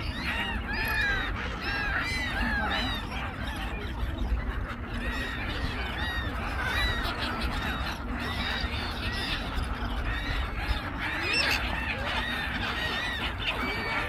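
A large flock of gulls calling over one another: many short, arching cries that overlap without a break, over a steady low rumble.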